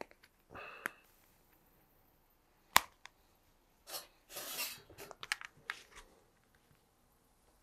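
Faint handling sounds of small rubber plugs and holster parts: a brief rustle, then a single sharp click about three seconds in, then a couple of seconds of rustling and small clicks as the pieces are worked into place.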